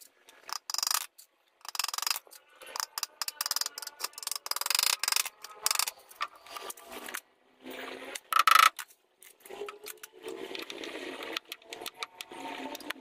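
Hand work fitting small metal hinges to a bamboo and wood coop door: irregular light clicks, clinks and scrapes of metal on wood. About eight and a half seconds in there is a louder clink with a brief ring.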